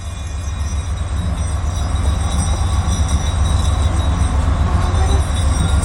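Passenger train rolling along, heard from inside the coach: a steady low rumble of wheels and running gear that grows slightly louder.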